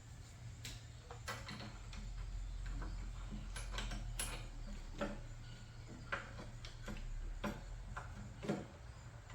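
Hand tools and small metal engine parts clicking and knocking at irregular intervals as a carburetor is unbolted from a small engine, over a steady low hum.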